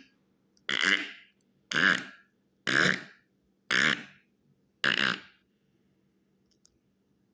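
A person making six short, burp-like mouth sound effects, one about every second, each dying away quickly.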